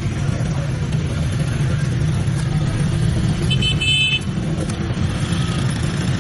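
Steady low rumble of street traffic, with a short, high horn toot about three and a half seconds in.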